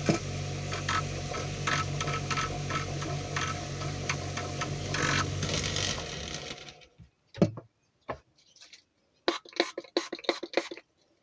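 A small rotary tool (Dremel) running steadily for about seven seconds, then switched off; a few light clicks and taps follow.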